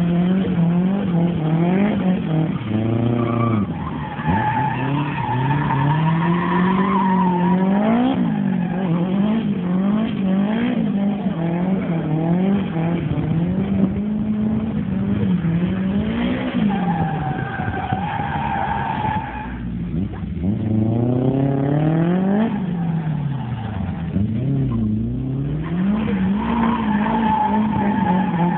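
Drift car's engine held at high revs through a slide, the revs swinging up and down constantly, while the tyres squeal in long high-pitched stretches. Three times the revs drop sharply and climb back.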